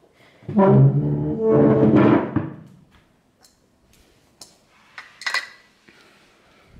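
A short burst of brass-like music: a few held notes lasting about two seconds. A brief light clatter follows about five seconds in.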